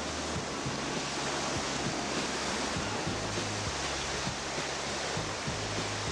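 Steady rushing of river whitewater, an even roar, with the bass notes of background music shifting underneath.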